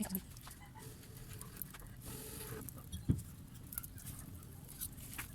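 Cooking sounds: scattered light clicks and taps of utensils and a pot, with a brief hiss about two seconds in and a low thump about three seconds in.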